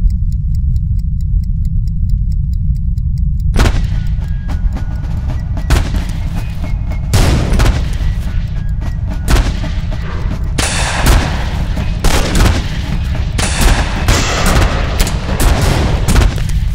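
Suspense film soundtrack: a heavy low rumble throughout, with a fast even ticking and a held tone for the first few seconds. After about three and a half seconds it breaks into a rapid, irregular barrage of sharp bangs and hits.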